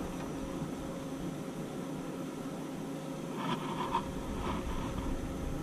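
Steady hiss of outdoor background noise on the camera's microphone, with a few faint short sounds about three and a half seconds in.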